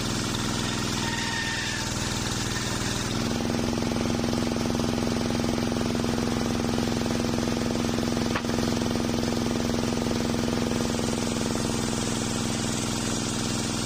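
Engine-driven homemade circular sawmill running, its blade ripping through an old waru (sea hibiscus) log: a steady machine hum with the hiss of the cut. The sound grows louder and shifts in tone about three seconds in, with one brief click past the middle.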